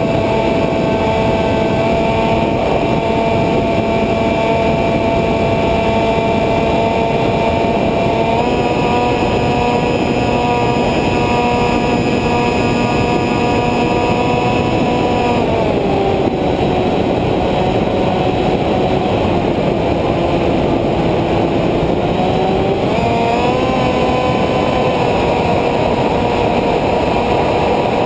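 Radio-controlled model airplane's motor and propeller heard from an onboard camera: a steady whine over heavy wind rush. The pitch rises slightly about eight seconds in, drops about fifteen seconds in as the throttle comes back, and climbs again near twenty-three seconds.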